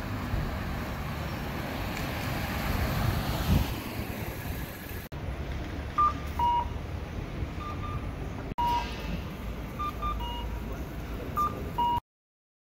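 City street noise with traffic, swelling as a vehicle passes about three seconds in. After that, short electronic two-note beeps, high then low, repeat every second or two over the street noise. The sound cuts out to silence near the end.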